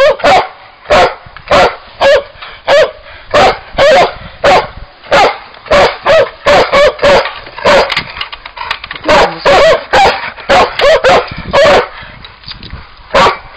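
Old English sheepdog barking in play: a fast series of short, loud barks, about two a second, with a brief lull near the end.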